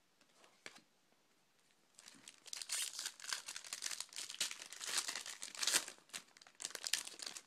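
Foil wrapper of an Upper Deck hockey card pack being crinkled and torn open. It starts about two seconds in with dense, irregular crackling, a pack that doesn't rip easily.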